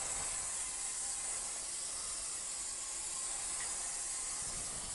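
Aerosol spray-paint can spraying in one long, steady hiss that cuts off suddenly at the end.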